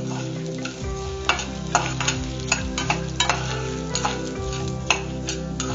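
Spices and lentils being stirred with a metal spoon in an aluminium kadai as they roast in a little oil. The spoon scrapes and knocks against the pan about two or three times a second over a light sizzle.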